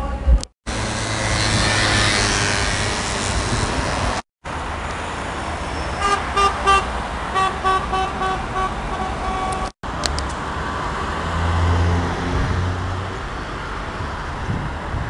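City street traffic with a horn sounding a quick run of short beeps a few seconds in. The sound cuts out abruptly three times.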